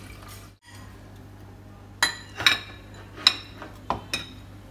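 Chopsticks clinking against a ceramic bowl while rice vermicelli is arranged in it: about six sharp clinks, starting about two seconds in.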